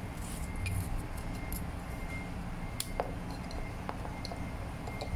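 Small plastic clicks and rustles of a black paper-roll holder being handled and fitted into an opened B21 label printer, with a few sharp clicks around the middle.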